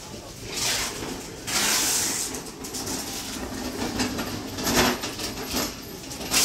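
Market hall ambience: a hand truck rolling and rattling over a tiled floor. Several bursts of hissing noise come through it, the loudest about a second and a half in.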